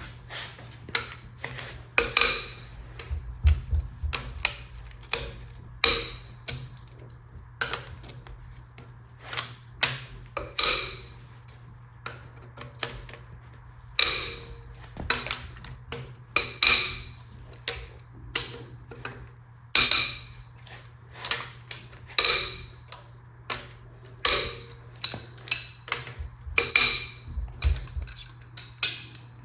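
Hand tools clinking and knocking against metal engine parts: irregular sharp metallic clinks, some ringing briefly, over a steady low hum.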